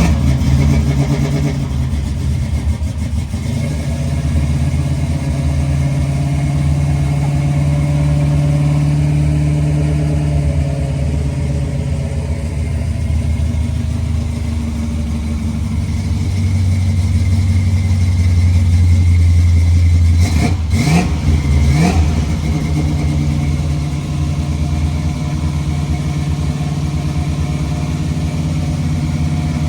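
A 468 cubic-inch big-block Chevy V8 with a roller cam, running through 3-inch exhaust and Dynomax Ultra-Flow mufflers, idling just after a start while it warms up. There are a few sharp sounds and a brief change in pitch about twenty-one seconds in.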